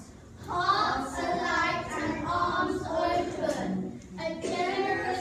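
A group of children's voices chanting a poem in unison, in a sing-song rhythm, with a short break about four seconds in.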